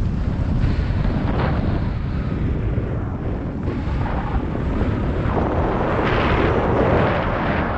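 Wind buffeting a selfie-stick action camera's microphone in paraglider flight: a steady low rumbling roar that swells into a louder, brighter rush about five seconds in.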